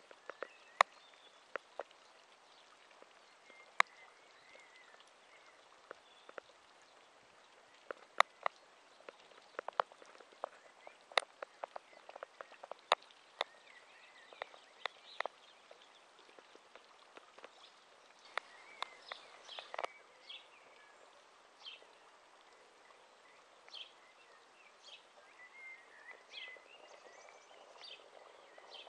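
Rural outdoor ambience: a faint steady hiss with scattered sharp ticks, most of them in the first two thirds. Short chirping bird calls come in over the last third.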